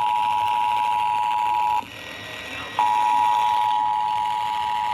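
Emergency Alert System two-tone attention signal (853 and 960 Hz sounded together) played over FM radio: a steady, loud tone that cuts out for about a second a little under two seconds in, then comes back.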